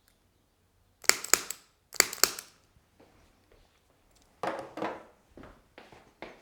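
Spring-loaded chiropractic activator instrument firing against the sacrum: two quick clusters of sharp clicks about a second apart. A duller rustling knock and a few soft taps follow.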